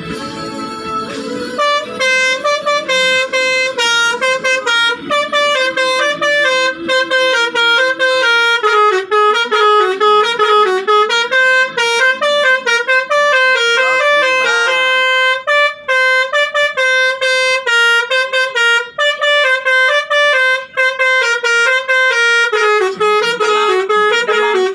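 Telolet basuri multi-tone bus horn playing a fast tune, its notes stepping up and down a few times a second, starting about two seconds in.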